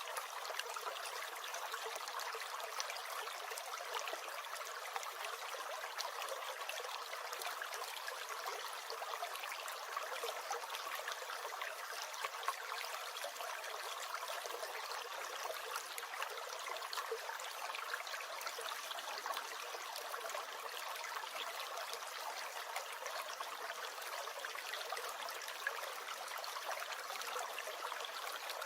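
Small stream gurgling and trickling steadily: an even rush of running water with fine splashes.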